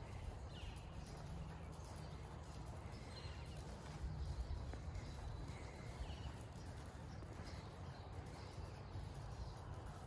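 A horse's hoofbeats on soft sand arena footing, with small birds chirping briefly now and then over a low steady rumble.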